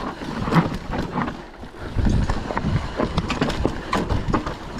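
Nukeproof Mega mountain bike rolling fast down a rough dirt trail: tyres rumbling over the ground with a busy rattle of knocks and clicks from the chain and frame. It gets rougher about two seconds in.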